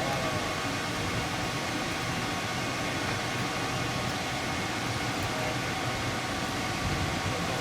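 Spindle of a homemade CNC machine running steadily: an even hiss with faint, steady high whine tones throughout.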